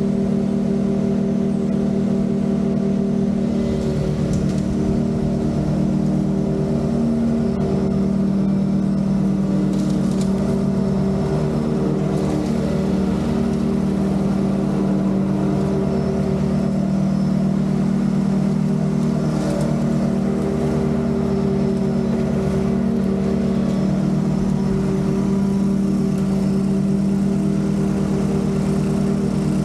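Commercial lawn mower engine running steadily at a constant high speed while mowing, an even drone with no change in pitch.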